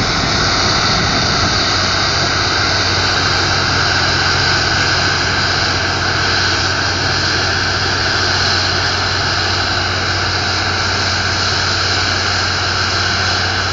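New Holland combine harvester working a grain field: its engine and threshing machinery run in a steady, loud drone with a low hum and high whines over it.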